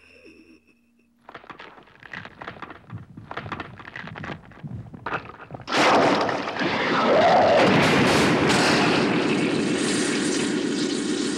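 Sound effects of a man transforming into a demon: a run of cracking, crunching clicks that grows denser, then about six seconds in a sudden loud rushing roar with a rising-and-falling growl in it, which carries on steadily.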